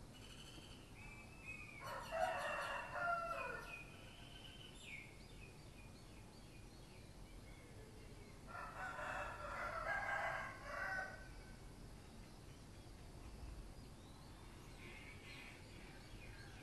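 A rooster crowing twice, the first crow about two seconds in and the second about eight and a half seconds in, each lasting roughly two seconds.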